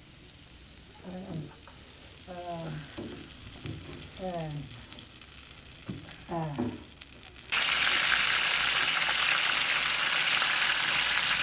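Food frying in hot oil, a loud steady sizzle that starts abruptly about seven and a half seconds in. Before it, a quieter stretch holds a few short falling-pitched voice sounds.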